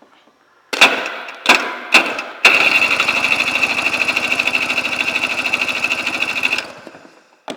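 The electric starter cranks a 1988 Yamaha WaveRunner 500 two-stroke engine for a compression test on the mag-side cylinder. The starter bumps three times, then cranks steadily for about four seconds with a whine and an even rhythmic pulse, and stops near the end. The cylinder reads 148 psi.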